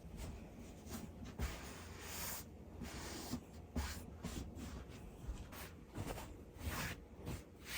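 Faint scattered rustling and light clicks, like objects being handled in a small room, over a low steady hum.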